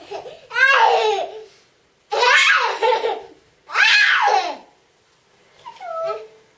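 Toddlers laughing and squealing with delight in four high-pitched bursts, the last one quieter.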